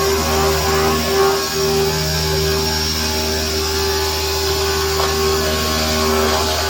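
C-100PRO circular sawing machine running while cutting thick-walled tube, a steady low motor hum with a constant whine and hiss over it.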